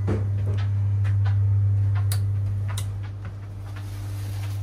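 Steady low hum inside a VR Pendolino train, with a few light ticks in the first three seconds; the sound eases slightly about three seconds in.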